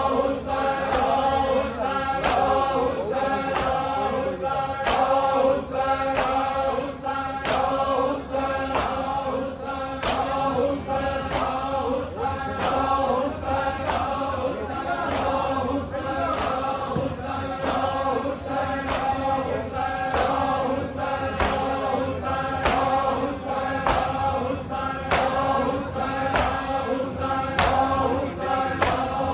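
A group of men chanting a Punjabi noha together in unison, over an even beat of matam, open-handed strikes on the chest, a little more than one a second.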